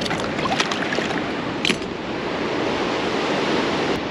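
Surf breaking on a beach, a steady rush of waves with some wind. A few short sharp sounds stand out in the first two seconds.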